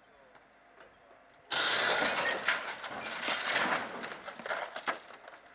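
A car slipping from a crane truck's hoist and hitting the road: a sudden loud crash about one and a half seconds in, then a few seconds of clattering noise that dies away.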